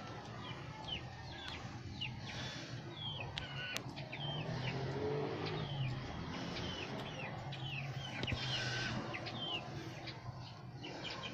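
Small birds chirping: short, high peeps that fall in pitch, about two a second, over a low steady hum.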